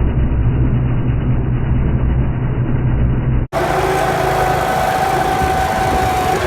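Small gasoline engine of a sod cutter running steadily. About three and a half seconds in, the sound cuts abruptly to another recording of the engine running, with a steady whine over it.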